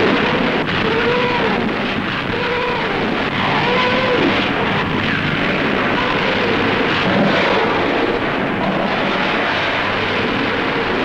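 Katyusha rocket launchers firing a salvo: a loud, dense roar with a rising-and-falling howl recurring about once a second as rockets go off one after another.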